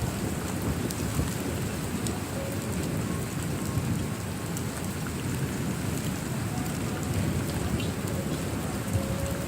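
Steady heavy rain with a low, continuous rumble of thunder underneath.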